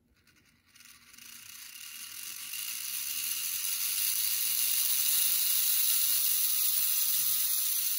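Vintage Penn Line HO-scale GG1 model locomotive's motor and gear train running, a whir that builds up over the first few seconds and then holds steady. It is really noisy despite freshly oiled bearings and greased gears; the owner suspects its tower gears.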